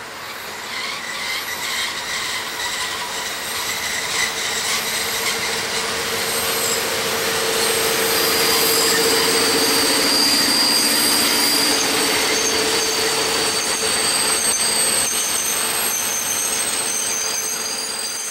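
SM42 diesel shunting locomotive passing close with its diesel engine running, followed by a string of dump wagons rolling by. Their wheels give a high, steady squeal over the rumble and clatter on the rails. The sound builds as the locomotive draws level, stays loudest for several seconds while the wagons pass, and eases off near the end.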